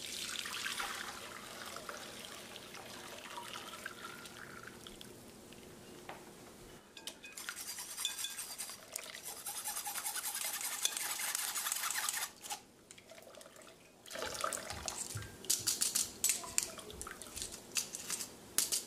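Hot meat stock poured from an enamelled cast-iron pot through a metal mesh sieve into a glass bowl, splashing steadily. After a short pause, a metal spoon scrapes and taps against the sieve in a quick run of clicks near the end.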